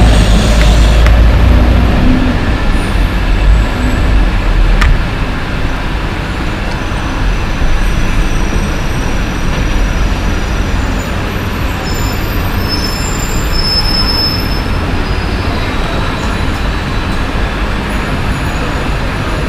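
Steady road traffic noise with a low rumble, heaviest in the first five seconds and easing after.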